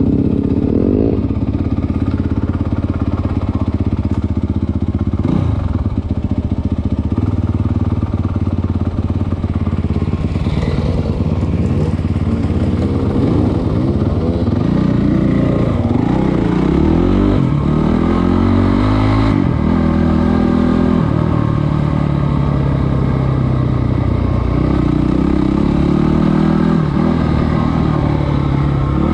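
Dirt bike engine running while riding along a trail, revving up and down. Its pitch rises and falls several times around the middle.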